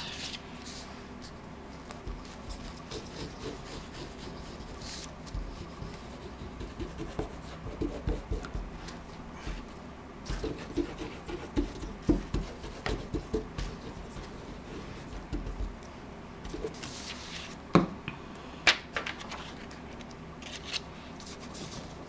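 Hands handling and rubbing sheets of paper on a cutting mat as one page is glued and smoothed down onto another, with soft rustles throughout and a few sharp clicks and taps near the end.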